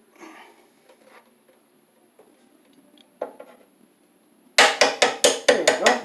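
A quick run of about eight sharp metal knocks, starting about four and a half seconds in: a screwdriver driven against a knockout in the bottom of a steel breaker panel to punch it open for the cable. Before that there are only faint handling clicks and rustles.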